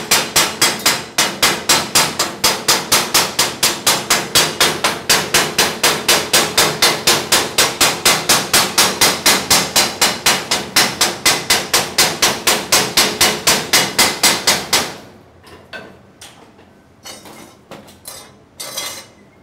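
Small hammer striking a fresh aluminium weld seam in a fast, even series of metallic taps, about four a second, chipping the slag off the bead. The taps stop about fifteen seconds in, leaving a few lighter knocks and scrapes.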